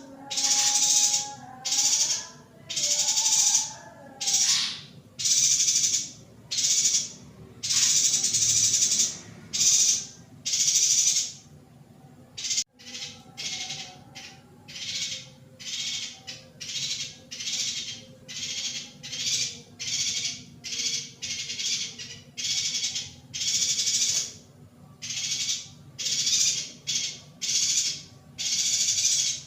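Female yuhina calling over and over in short, buzzy, hissing bursts, about one a second, with faint whistled notes beneath at first. After a brief break about halfway through, the calls come shorter and quicker, about two a second.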